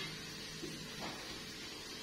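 Flour-coated potato fries frying in hot oil in a pan, a steady sizzle, with a light click right at the start.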